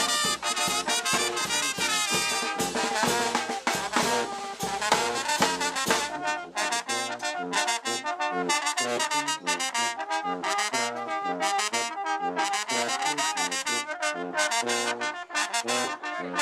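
Brass band of tuba, trombones and trumpets playing a tune with a steady beat. The deep bass drops out about six seconds in.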